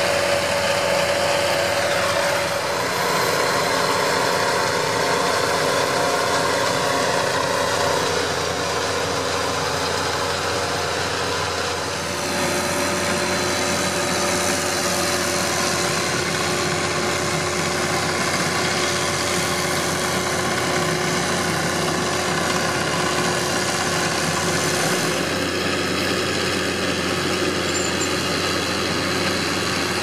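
New Holland tractors' diesel engines running steadily under load, pulling a trailed potato harvester and a potato trailer. The engine tone changes abruptly a few times.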